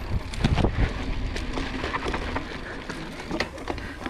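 Mountain bike ridden over a rough dirt trail: the tyres run on loose ground and the bike rattles and knocks over bumps, with a cluster of heavier knocks about half a second in. Low wind rumble on the microphone underneath.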